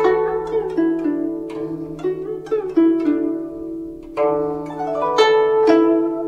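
Background music of a plucked string instrument playing a melody, each note struck sharply and ringing out, over a steady low tone.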